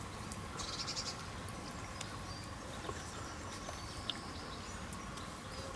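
Quiet outdoor background with a short, faint bird trill about a second in and a few light ticks.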